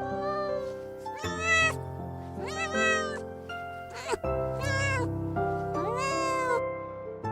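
A cat meowing several times, each meow a short call that rises and then falls in pitch, over background music with long held chords.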